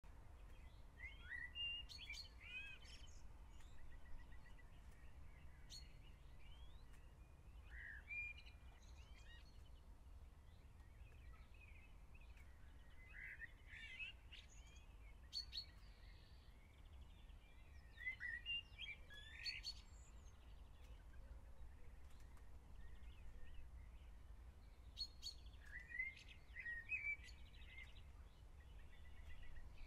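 Faint small-bird chirps and calls in short clusters every few seconds over a low, steady background rumble.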